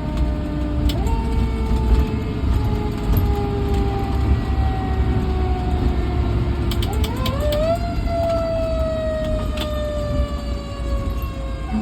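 Fire truck siren sounding: its pitch climbs about a second in and slowly sinks, then climbs steeply again about seven seconds in and slowly sinks again. The truck's low rumble runs underneath.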